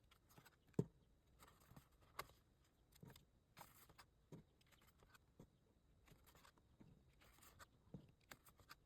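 Faint, scattered paper rustles and light taps: the pages of a small photo book being turned by hand.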